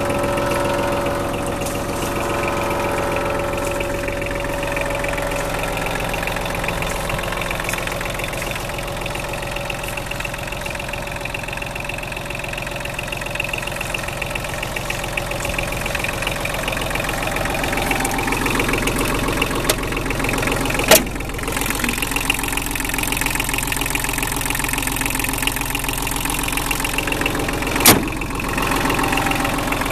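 1985 Kubota KH35 mini excavator's diesel engine idling steadily. Two sharp knocks stand out in the second half, about seven seconds apart.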